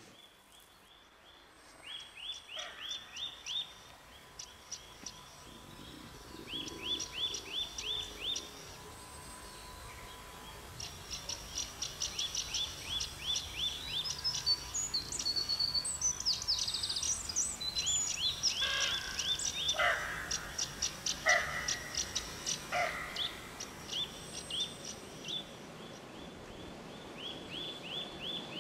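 Small birds chirping: runs of quick, short, falling chirps repeating every second or two, thickest in the middle, with a few lower calls mixed in.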